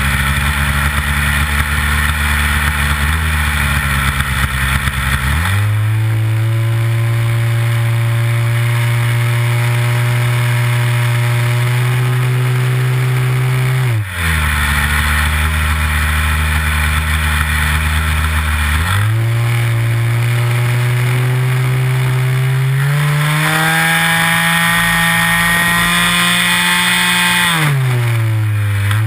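Nitro glow engine of a Big Stik 60 RC airplane, heard from an onboard camera in flight, with the throttle being worked: the pitch steps up to a higher steady note about five seconds in, drops back around the middle, rises again, climbs higher still near the end, then falls away just before the end.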